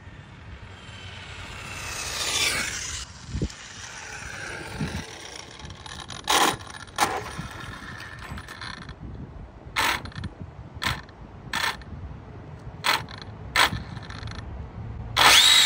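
Brushless electric drivetrain of an Arrma Limitless RC car running on 8S. Its whine falls in pitch as the car slows about two seconds in. It then gives about seven short bursts of throttle as it creeps near the camera, and whines loudly as it pulls away near the end.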